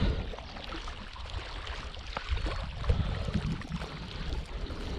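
Wind buffeting the microphone, an uneven low rumble, with scattered small knocks and rustles of handling.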